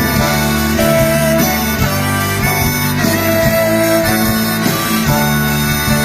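Live rock band playing an instrumental passage, a harmonica carrying the melody in long held notes over guitar and drums.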